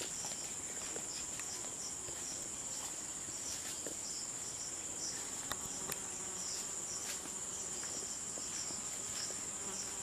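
Outdoor insect chorus: a steady, high-pitched drone with softer chirps pulsing under it, and a few faint clicks.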